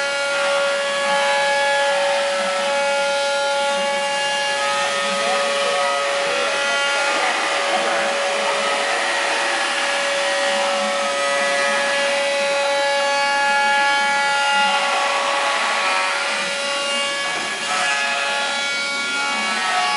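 5-axis CNC router running a cut: the spindle holds a steady whine under a continuous rasping cutting noise, with higher tones that come and go as the tool moves.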